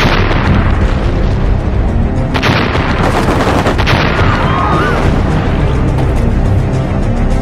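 Several explosion booms over dramatic music, each a sudden blast that dies away: one at the start, then three close together between about two and a half and four seconds in.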